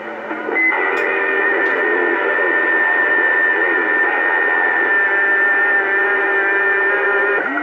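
Uniden Bearcat 980 CB radio's speaker on AM channel 28, hissing with static and carrying several steady whistling tones and garbled, wavering signals from other stations; a high whistle comes in under a second in and holds.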